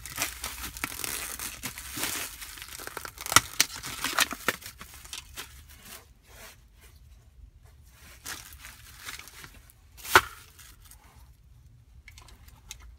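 Plastic shopping bag and clear plastic blister packaging crinkling and tearing as a package is opened, with a few sharp snaps in the first half; later, quieter rustling and a single loud sharp click about ten seconds in.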